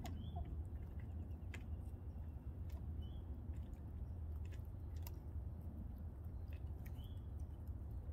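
Quiet outdoor backyard ambience: a steady low rumble under scattered light clicks, with three short high bird chirps a few seconds apart.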